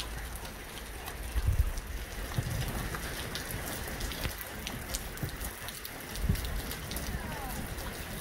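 Light rain pattering in many small drops, over low rumbles that swell about a second and a half in and again near six seconds.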